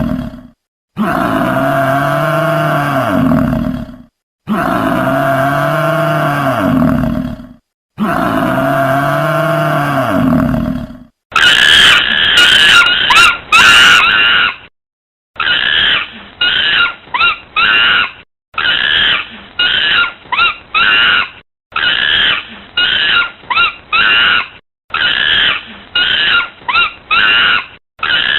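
Animal calls: three long, deep, pitched calls of about three seconds each, then about eleven seconds in a change to a run of many short, high squealing calls from a different animal.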